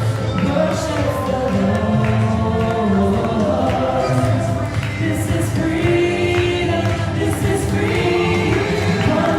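A group of voices singing a Christian worship song, holding long notes.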